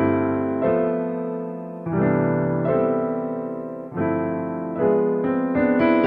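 Background music: slow keyboard chords, each struck and left to fade, changing every second or so, with quicker notes coming in near the end.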